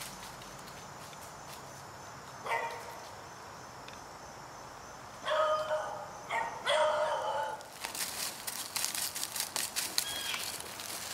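A dog barks: one short bark about two and a half seconds in, then a louder run of longer barks between about five and eight seconds in. After that come footsteps crunching through dry fallen leaves.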